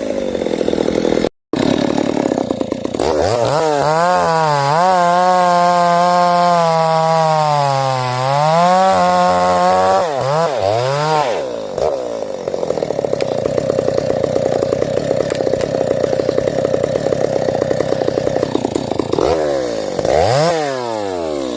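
Stihl MS 250 two-stroke chainsaw revving up and down, then held at high speed with its pitch sagging briefly, as under cutting load. It drops back to a steady lower-pitched run and is revved again near the end. The sound cuts out for a moment about a second in.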